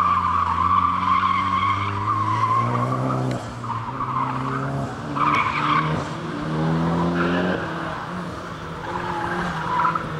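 Tires squealing steadily through a long turn for the first two seconds. Then the first-generation DSM's four-cylinder engine revs up and drops back several times between cones, with shorter tire squeals as it turns again.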